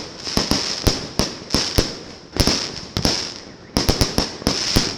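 Fireworks and firecrackers going off: irregular sharp bangs, several a second, over a continuous high crackle.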